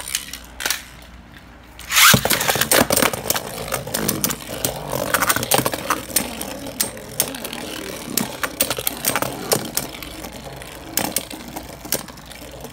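Two Beyblade Burst spinning tops launched into a plastic stadium: a sharp burst about two seconds in as the second top goes in, then a steady whirring scrape on the plastic with many quick clicks and knocks as the tops clash.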